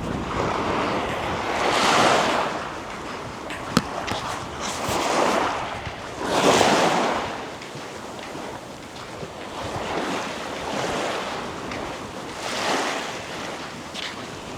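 Ocean waves breaking and washing up the beach, a rushing noise that swells and fades every few seconds, with wind on the microphone. A single sharp click sounds a little before four seconds in.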